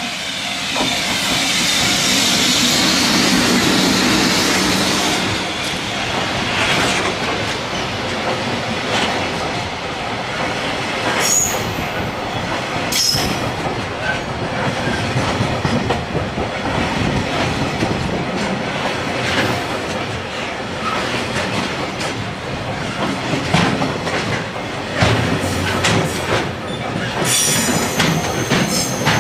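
A heavily loaded container freight train behind an EF65 electric locomotive rolls slowly through a sharp curve. It is loudest as the locomotive goes by in the first few seconds, then settles into a steady rumble of container wagons with rapid wheel clicks over the rail joints. Brief high-pitched flange squeals come from the wheels on the curve, twice in the middle and again near the end.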